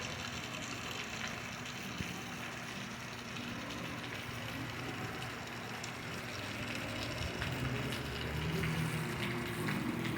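Steady rain falling, with water running. A low rumble swells a little near the end.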